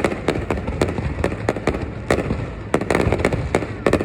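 Fireworks display: a rapid, irregular string of sharp bangs, several a second, over a continuous low rumble.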